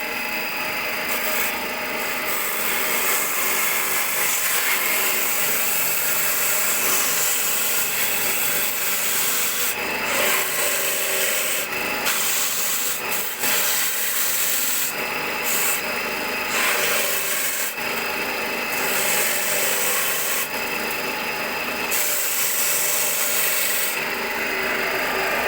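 Homemade coconut grater machine driven by a Sanyo electric motor, running steadily with a motor hum and a rasping, scraping noise of the spinning grater that drops away briefly and returns several times.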